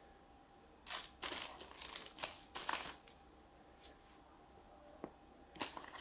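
Plastic board-game pieces on their sprues being handled and set down on a table: a run of rustling and light clattering for about two seconds, then one more short rustle near the end.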